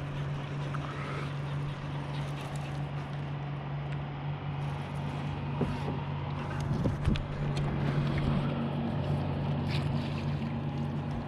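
A steady low hum of a boat motor, with water splashing and scattered knocks that grow busier in the second half.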